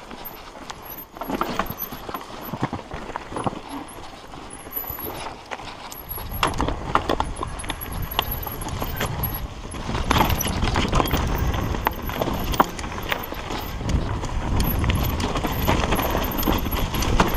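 Mountain bike riding down a rough dirt singletrack: a steady run of clicks, knocks and rattles as the tyres go over roots and rocks. About six seconds in, a low rumble joins and grows louder.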